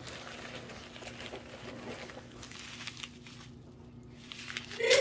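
Small paper silica gel desiccant packets crinkling and nylon bag fabric rustling as hands gather the packets out of the bag, a soft uneven rustle with small clicks that goes quieter about three and a half seconds in.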